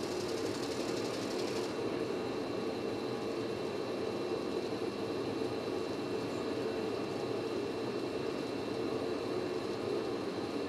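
Steady industrial machinery hum with two thin, constant high whines, and a brief hiss over it for the first second and a half.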